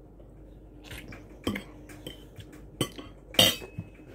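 A metal fork and chopsticks clinking against ceramic plates while eating noodles: a handful of scattered clicks, the loudest about three and a half seconds in, with a brief ring after it.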